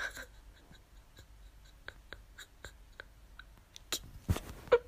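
Quiet pause with faint scattered clicks and rustles from a handheld phone moved close to the face, and a soft thump about four seconds in.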